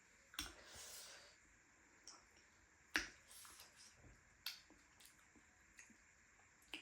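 Faint eating noises: a few sharp mouth clicks and smacks, the loudest about three seconds in, with a short soft squish after the first.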